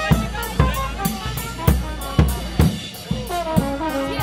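Marching brass band playing: a bass drum and snare beat about twice a second under brass horns, and the horns come up louder about three seconds in.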